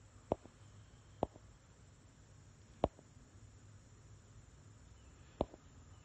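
Four short, sharp clicks at irregular spacing, each followed at once by a fainter second click, over a low steady hiss.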